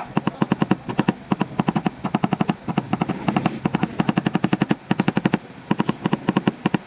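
Rapid hammer taps on a dented car tailgate panel, about nine sharp metallic strikes a second in runs with short pauses: dent repair to knock the metal back into shape.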